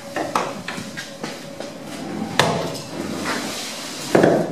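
A series of sharp knocks, a few small ones in the first second and a half, then a loud one about two and a half seconds in and another near the end.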